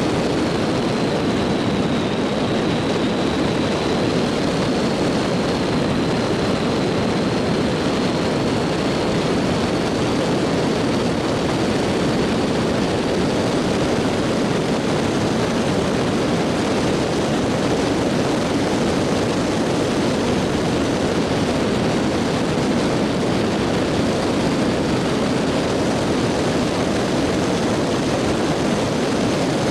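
Steady road and engine noise of a 2018 Dacia Logan driving at an even speed, with a faint high whine running through it.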